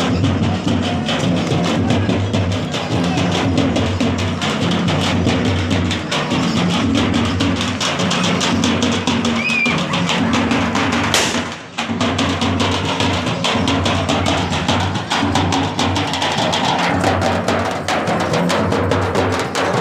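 Village band music driven by frame drums and barrel drums, beaten in a dense, fast, steady rhythm. It cuts out briefly near the middle.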